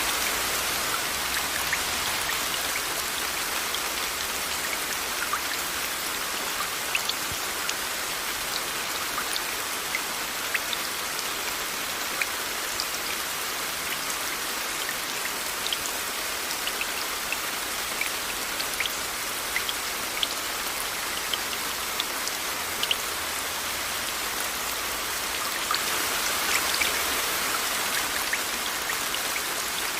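Steady rain with scattered individual drops ticking on a surface, layered with white noise as an even hiss, swelling slightly near the end.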